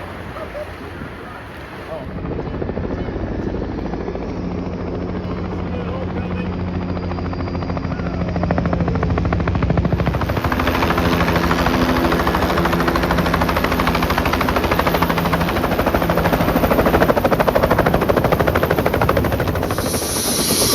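Helicopter in flight: a fast, even rotor-blade chop over a steady engine hum, louder from about ten seconds in.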